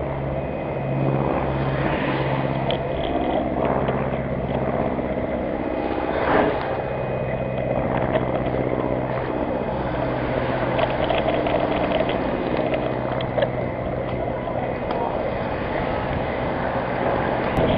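Bicycles rolling on asphalt, heard from a camera mounted on one of them in a group of riders: steady tyre and wind noise with a low hum and occasional light clicks.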